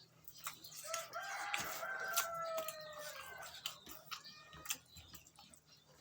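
A rooster crowing once, one long call of about two seconds, over close chewing clicks.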